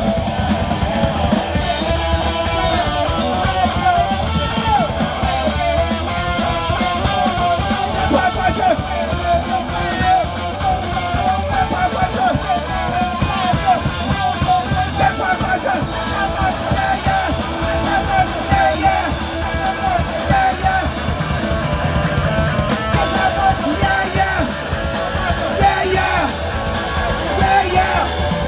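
Live punk rock band playing: electric guitar, electric bass and drum kit through a PA, loud and continuous.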